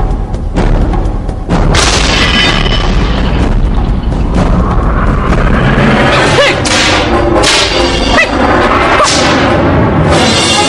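Dramatic fight-scene soundtrack music with deep booming hits and sudden swells from martial-arts sound effects.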